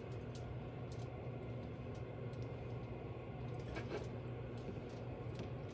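Steady low hum with a few faint light clicks and taps from handling food: cheese cubes taken from a small bowl and set onto puff pastry squares filled with vegetable filling.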